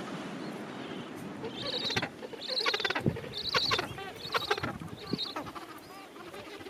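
Gentoo penguin braying: about five loud, harsh, pulsed calls in quick succession in the middle. Behind them is the steady mixed calling of the rookery.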